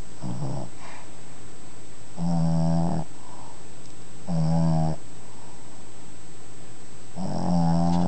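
Boston terrier puppy snoring in her sleep: four pitched snores about two seconds apart, the first one faint, with a longer pause before the last.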